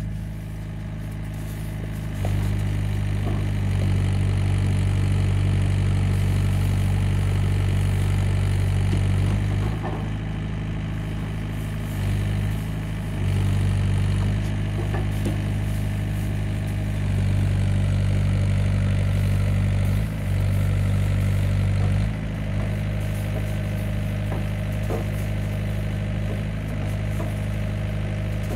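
MAIT Baby drill rig's engine running steadily, now and then loading up to a louder, fuller note for several seconds at a time before easing back, with a few light clicks from the rig.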